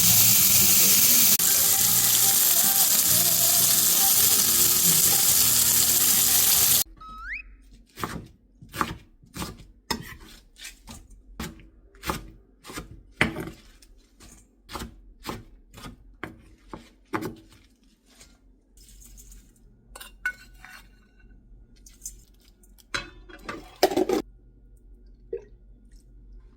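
Kitchen cooking sounds: a loud, steady hiss that cuts off suddenly about seven seconds in, then a run of sharp knocks at about two a second, thinning out into scattered clicks and clinks near the end.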